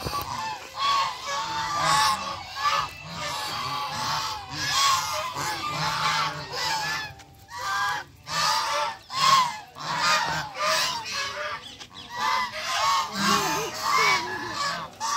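A flock of white domestic geese honking, many short calls overlapping with hardly a break, thinning briefly about halfway through.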